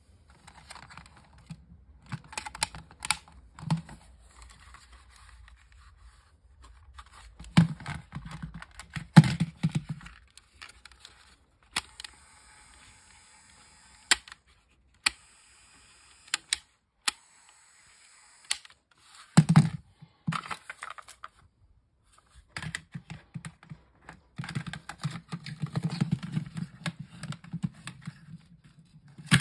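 Plastic clicks, snaps and rattles of an AIWA GS202 portable cassette player being handled: its cassette door opened and a cassette slid in. The sharp clicks come irregularly throughout, with a denser stretch of handling clatter near the end.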